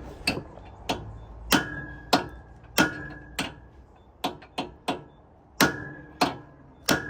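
Hammer striking metal on a semi-truck's wheel hub, about a dozen sharp blows with a ringing note, roughly one every half second and a few lighter quick taps midway. The blows are tightening and locking the wheel-bearing adjusting nut.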